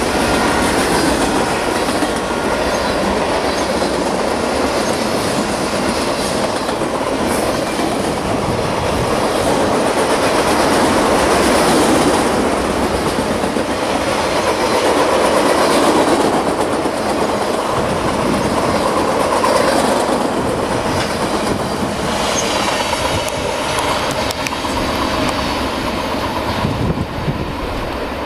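CSX freight cars rolling past close by: a steady rumble and clatter of steel wheels on the rails, easing off slightly near the end.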